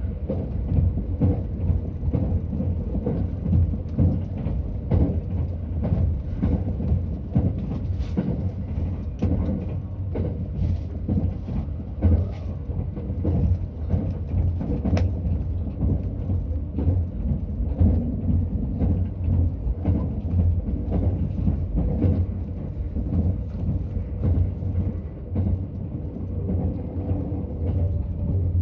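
Cabin noise of a limited express electric train running at speed, heard from inside the passenger car: a steady low rumble of wheels on rails with frequent small irregular knocks and rattles.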